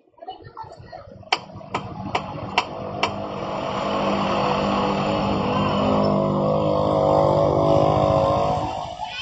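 Five sharp clicks, then a Bajaj CT100's single-cylinder four-stroke engine running, growing louder and then dropping away near the end.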